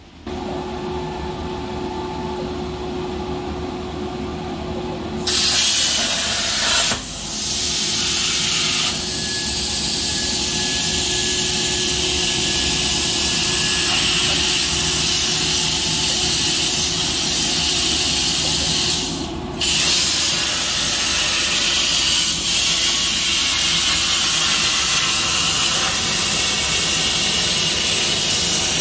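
CNC plasma cutter cutting steel plate: a loud, steady hiss from the torch that starts about five seconds in and breaks off briefly twice. Before it starts there is a steady machine hum with a faint steady tone.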